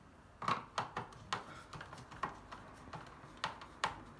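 Irregular sharp clicks and taps, about eight, of a screwdriver working on the door parts of a Beko washer dryer, the loudest about half a second in.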